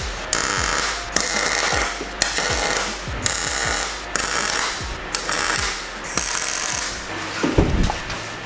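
MIG welder laying short stitch welds on steel roll-cage mounting pads: about seven crackling, hissing bursts of under a second each, roughly one a second with brief pauses, over a steady low hum. A low thump near the end.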